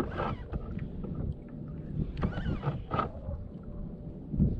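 Water lapping and sloshing against a kayak hull, with wind rumble on the microphone and a few short louder splashes.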